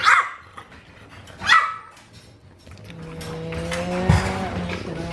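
French bulldog puppy barking twice, two short yips that fall in pitch about a second and a half apart. From about three seconds in, a steady low hum rises in level and holds.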